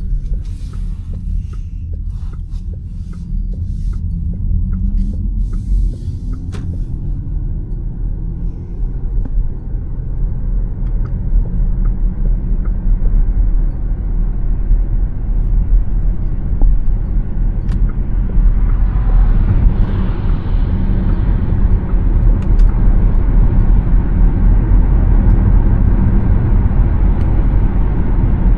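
Road noise from a Škoda Elroq electric SUV driving on a freeway: a steady low rumble of tyres and wind with no engine note. It grows louder and fuller about two-thirds of the way in.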